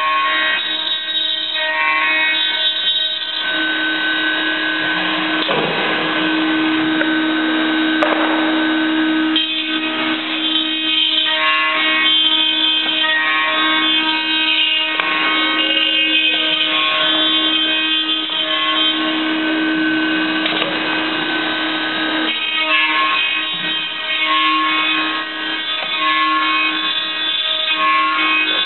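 CSJ-500B CNC dovetail tenoning machine running, its motors giving a steady whine made of several tones that shift as it moves through its cutting cycle. There is one sharp click about eight seconds in.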